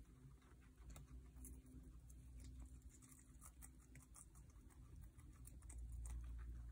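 Guinea pigs chewing and nibbling shredded carrot and lettuce: faint, irregular small crunching clicks.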